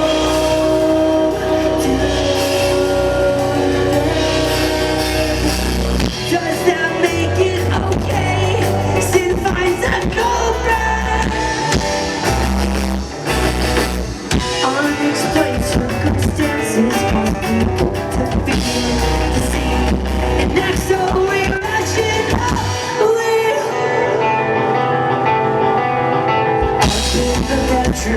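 Live post-hardcore rock band playing: electric guitars, bass and drum kit with sung vocals, loud and dense. Near the end the bass and drums drop out for about three seconds, then the full band comes back in.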